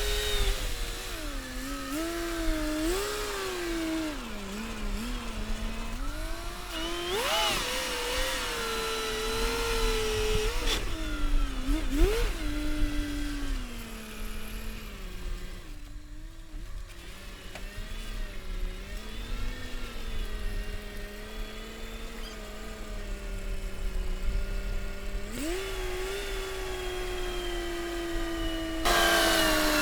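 Engine of a tracked snow vehicle running under varying load, its pitch rising and falling repeatedly. It settles to a lower, steadier note for a while, then picks up sharply near the end.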